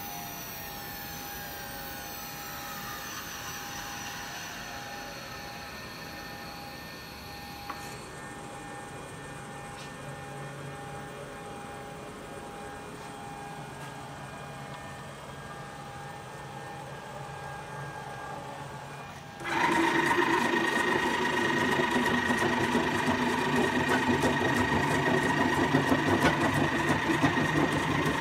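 FM30C CNC mill's spindle running at 10,000 RPM with a steady whine. About two-thirds through, the sound turns suddenly much louder and rougher as the tool starts cutting: a steady whine over a rasping grind.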